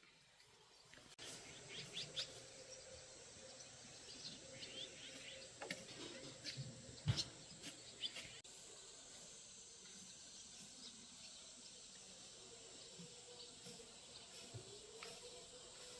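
Faint outdoor ambience: a steady hiss, with short bird chirps and a few sharp clicks in the first half.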